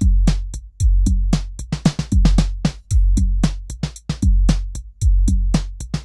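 Korg drumlogue drum machine playing a beat. Low bass-drum hits with long tails land about once a second, under a busy run of short, sharp percussion hits.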